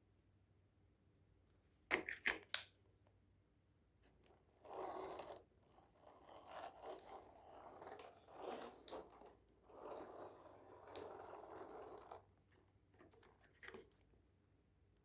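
Objects being handled: three quick clicks about two seconds in, then several seconds of broken rustling and scraping, with a last faint click near the end.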